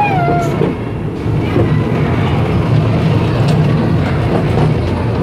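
Children's fairground ride-on train running along its narrow-gauge track, a steady low rumble heard from inside its carriage.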